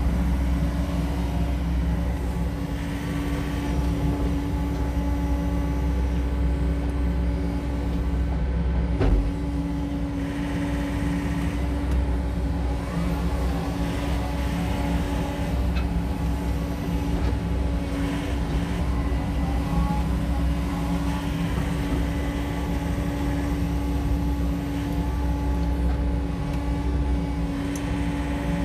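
SANY SY80U mini excavator's diesel engine running steadily under hydraulic load as the boom swings and the bucket works, with a single sharp knock about nine seconds in.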